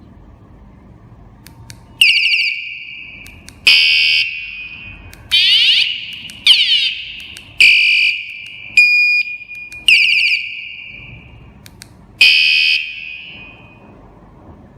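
KS-SF22R vehicle security alarm siren sounding about eight short, loud bursts one after another, each a different one of its selectable siren tones: warbling sweeps, rapid beeps and a steady high tone. The tones are being stepped through with the tone-select button.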